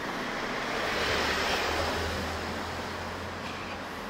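A motor vehicle driving past on the street: engine hum and tyre noise swell about a second in, then fade.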